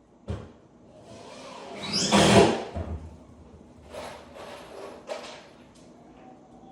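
Hardwood-floor repair work: a short knock, then a longer scraping slide that builds over about two seconds, followed by two shorter scrapes.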